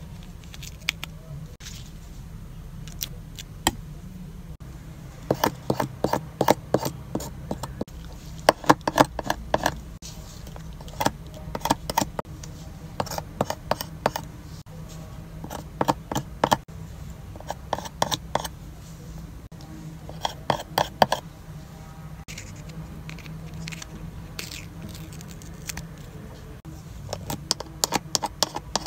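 Pink plastic sticker tool tapping and rubbing on an acrylic goo card as stickers are pressed down, in clusters of quick sharp clicks over a low steady hum.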